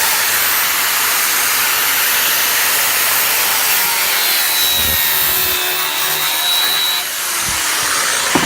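Angle grinder with an abrasive cut-off disc cutting through a Lenovo smartphone's metal frame: a loud, steady grinding hiss that eases slightly about seven seconds in.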